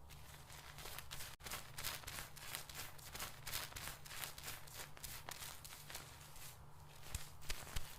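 Hands scrubbing a customer's hair and scalp during a seated dry hair wash: fast, irregular scratchy rustling, over a steady low hum.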